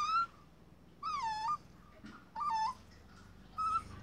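Puppy whining: four short, high-pitched cries about a second apart, each bending in pitch.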